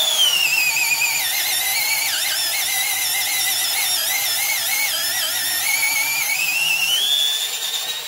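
Milwaukee M12 Fuel cordless drill in first gear boring a Bauer ship auger bit into wood at about 450 RPM. Its high motor whine drops in pitch as the bit bites and loads the drill, wavers while it cuts, and rises again near the end as the load eases, then cuts off.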